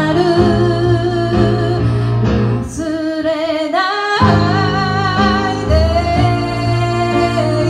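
A song performed live: a woman's voice singing the melody over guitar and bass accompaniment. About halfway through the bass drops out for a moment while the voice glides up to a higher note.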